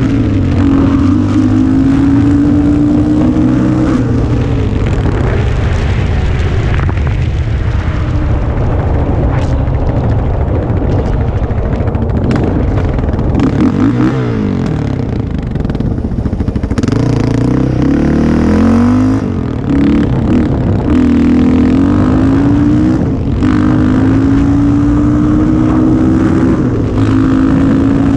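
Yamaha Raptor 660 ATV's single-cylinder four-stroke engine, breathing through Yoshimura pipes and headers, running hard under way. Its pitch climbs and drops as the throttle is opened and eased off, with a deep dip and re-climb around the middle.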